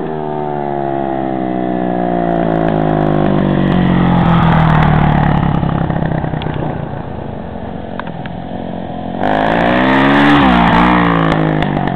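Yamaha YZ450 dirt bike's single-cylinder four-stroke engine under throttle as the bike passes, its pitch sliding down over the first few seconds. Near the end the revs rise and fall again as the rider lifts the front wheel into a wheelie.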